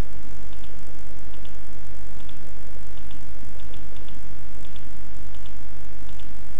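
Steady electrical hum and hiss on the recording, with faint clicks in pairs about once a second: computer mouse button clicks as network cables are drawn between devices.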